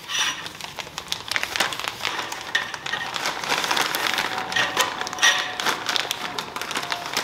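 Crackling and irregular clicking as a stock motorcycle fork spring, wrapped in a towel, is drawn up out of the fork tube: the wrapping rustling and the spring's coils ticking against the tube.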